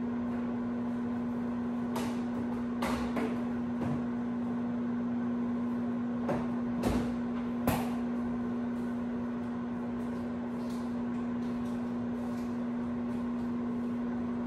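Microwave oven running with a steady hum. A few sharp knocks and clatters come about two and three seconds in, and again around seven and eight seconds in.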